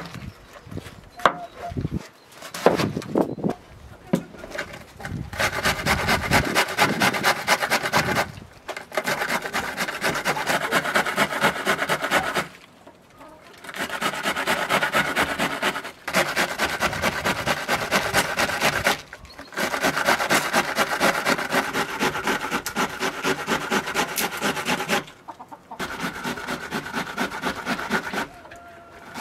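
Kitchen knife cutting a red cabbage on a wooden cutting board. A few uneven cuts come first, then long runs of rapid, even strokes against the board, each run a few seconds long with short pauses between them.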